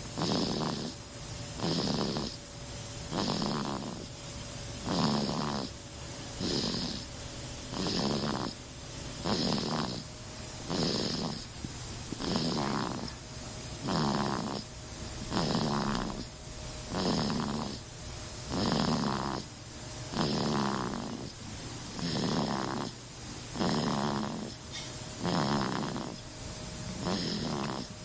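A sleeping baby snoring, one snore on each breath at an even pace of about one every one and a half seconds.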